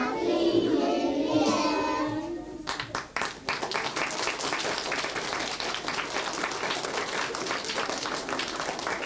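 Young children singing together; the song ends about two and a half seconds in and is followed by an audience clapping.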